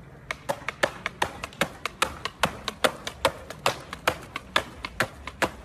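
Skateboard clacking on concrete: a quick, uneven run of sharp clacks, about four or five a second.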